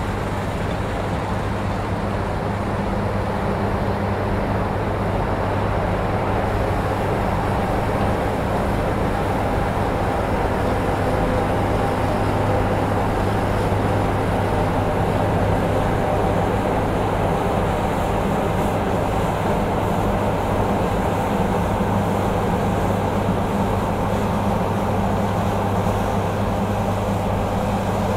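Combine harvester running steadily under load, a constant engine drone with a low hum.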